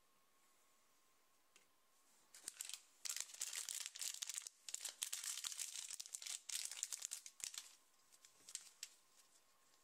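A blind bag's plastic wrapper being torn open and crinkled by hand: dense crackling starting about two seconds in and lasting about five seconds, then a few light rustles and clicks.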